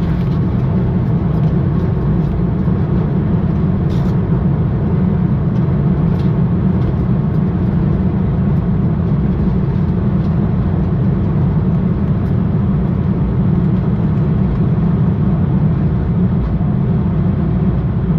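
Steady, loud, low rumble in a Boeing 787-9 cockpit during the landing rollout, with the engines in reverse thrust as the airliner decelerates on the runway. A few faint clicks sit on top of it.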